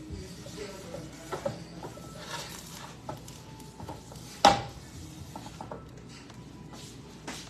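Cookware and utensils clinking and knocking, with one loud ringing metal clank about four and a half seconds in.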